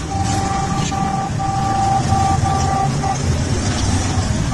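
Motorcycle engines rumbling steadily as a large group of bikes rides past, with a high tone sounding in short, evenly repeated pulses over them.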